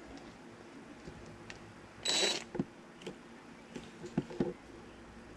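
Scattered light clicks and knocks of a cordless drill and driver bit being handled and fitted onto a two-stroke snowmobile engine's oil pump, with one short, louder burst of noise about two seconds in.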